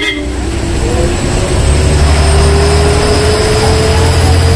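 A vehicle engine running, a heavy low rumble with a whine that slowly rises in pitch.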